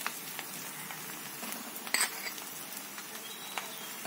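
Faint sizzle from a metal kadai of tempered dal, with a few light clinks of a steel slotted spoon against the pan, the clearest about two seconds in.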